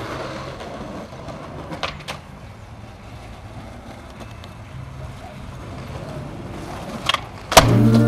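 Skateboard rolling on concrete, with a couple of sharp board clacks about two seconds in and a louder pop and hit of the board near the end. Music with a humming voice starts right after that last hit.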